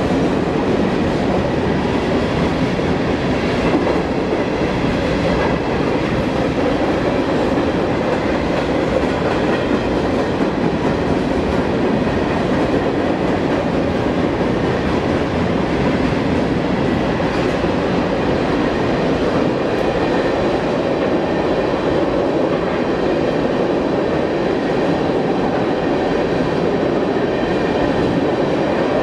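Freight cars of a long mixed freight train, open hoppers and then a tank car, rolling steadily past: the continuous noise of steel wheels on the rails, even in level throughout.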